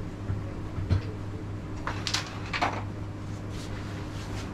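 Carrom striker flicked across the wooden board: a sharp knock about a second in, then a few lighter clicks of striker and carrom men, over a steady low hum.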